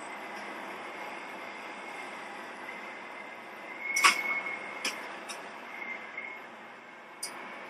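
Steady machinery noise with a faint high whine, broken by a few sharp metallic knocks, the loudest about four seconds in.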